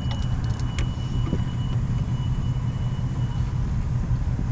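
A few light metallic clicks in the first second as the glad hand of a semi-truck's service air line is handled and coupled, over a steady low rumble.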